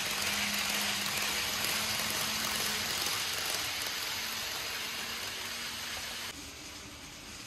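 Kato N-gauge 683 series 4000 model train running past on the track: a steady rushing noise of wheels on rails with a faint motor hum. It drops off suddenly about six seconds in as the train passes.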